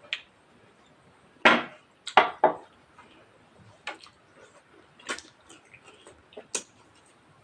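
Eating noises close to the microphone during a rice-and-curry meal: a quick run of three loud, crackly noises about one and a half to two and a half seconds in, then scattered lighter clicks and clacks.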